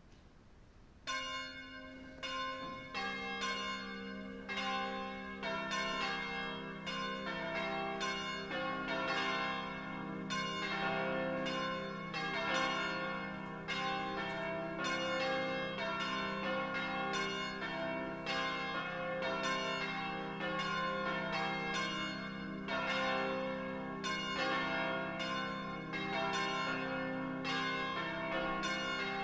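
Church bells ringing: repeated pitched strikes begin about a second in, with deeper notes joining over the next few seconds and ringing on under the quicker higher strikes.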